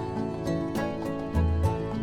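Background music with plucked-string notes over a steady bass line.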